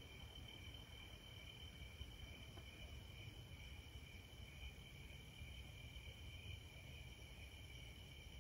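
Faint, steady chorus of crickets trilling at two even high pitches, over a low background rumble.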